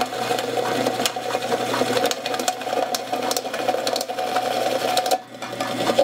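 Drill press running with a step drill bit cutting into the side of a tin can to enlarge a hole: a steady motor hum with a scratchy, ticking scrape of the bit on the thin metal. The cutting noise drops away briefly about five seconds in, then picks up again.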